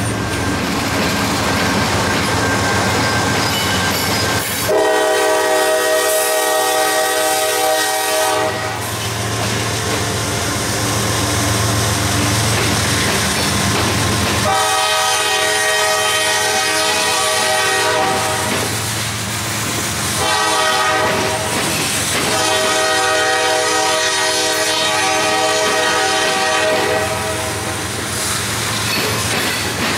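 Freight locomotive air horn sounding the long-long-short-long crossing signal, each blast a steady chord, over the drone of the diesel locomotives and the clatter of loaded hopper cars rolling past.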